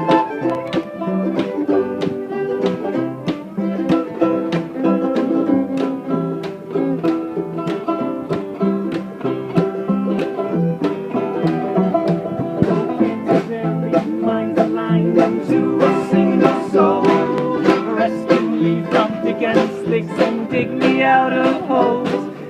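Bluegrass band playing an instrumental break, led by rapid banjo picking with guitar underneath.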